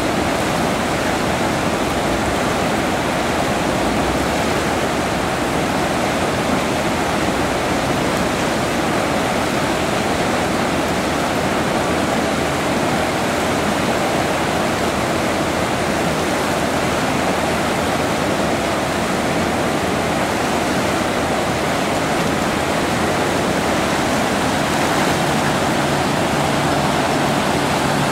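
Whitewater rushing through an artificial concrete slalom canoe course, churning over plastic obstacle blocks in a loud, steady, unbroken rush. A low steady hum joins in near the end.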